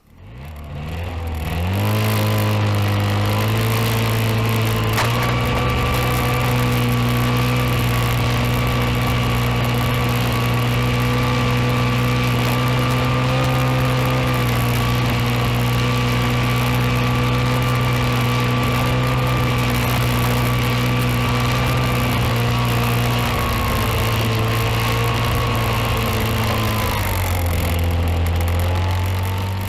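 A vehicle engine runs hard: it rises in pitch over the first two seconds, steps up a little about five seconds in, holds a steady high drone, then drops in pitch near the end.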